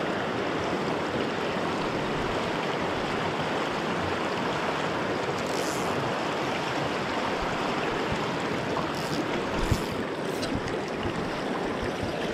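Steady rush of river water flowing over a riffle. A few brief soft swishes come in the second half, and a single light knock about ten seconds in.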